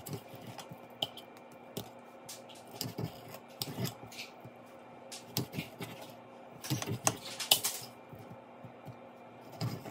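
Kitchen knife slicing raw beef on a ceramic plate: irregular clicks and taps as the blade meets the plate, loudest in a cluster about seven seconds in.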